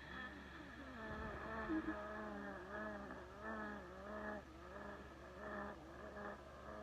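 A person wheezing: a whistling, wavering tone that rises and falls with the breath, breaking into shorter pieces in the second half. It is the sign of narrowed airways.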